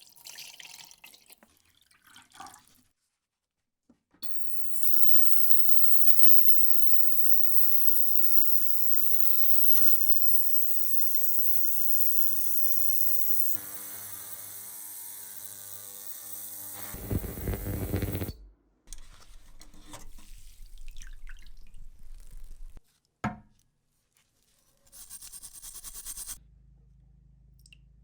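Water running from a tap as parts are rinsed: a steady rush for a long stretch, then a louder gush, then shorter bursts cut apart by edits.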